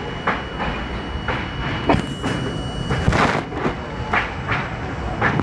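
R32 subway train running express through a station, its wheels clacking over the rail joints: a run of sharp clacks, roughly two a second and unevenly spaced, over a steady rumble. A thin high whine stops about three seconds in.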